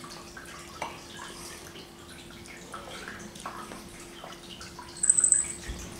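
Quiet eating sounds: a metal fork and spoon tapping and scraping in bowls, in scattered light ticks, with a brighter, louder ringing clink about five seconds in. A faint steady hum runs underneath.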